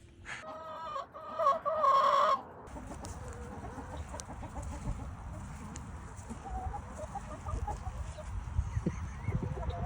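Chicken calling in a loud, pitched squawk lasting about two seconds. The call stops abruptly and is followed by a steady low rumble.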